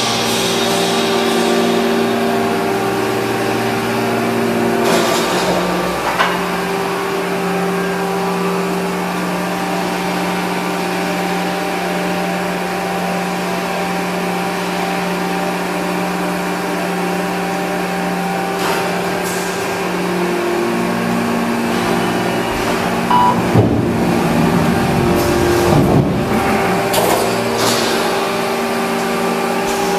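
Steady multi-tone machine hum of an 800-ton stamping press during an automatic die change, its pitch pattern shifting about five seconds in and again around twenty seconds in. A few metallic clanks and squeals come between about 23 and 27 seconds in.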